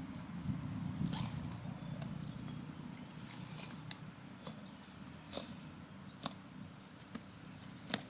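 Cow grazing, tearing grass off with short, sharp rips about once a second, over a low rumble that fades after the first three seconds.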